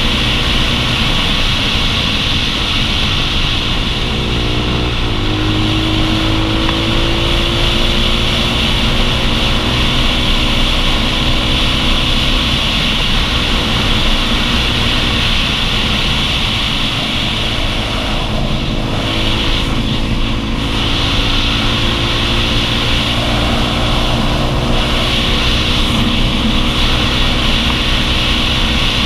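Motorcycle engine running at road speed under heavy wind rush over the camera. The engine note shifts about five seconds in, then holds fairly steady.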